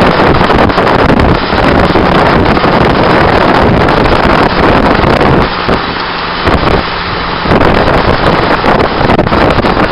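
Heavy wind rush buffeting the microphone of a camera mounted low on the outside of a moving car, mixed with tyre and road noise at speed. Around the middle the rush eases for a couple of seconds and a low steady hum shows through.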